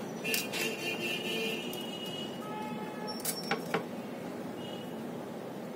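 Handling sounds of a circuit board being fitted into a sheet-metal scale housing: a few light clicks and taps, two near the start and three more in quick succession past the middle, with a faint thin ringing scrape between them, over steady background noise.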